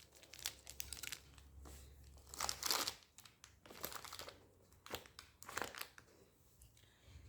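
Chocolate bar wrappers crinkling as packets are handled and set in place, in short irregular rustles, the loudest about two and a half seconds in.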